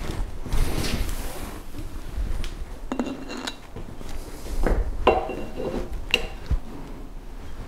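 Metal clinks and knocks, a few of them ringing briefly, as a metal handwheel and its key are slid onto a surface grinder's knee shaft.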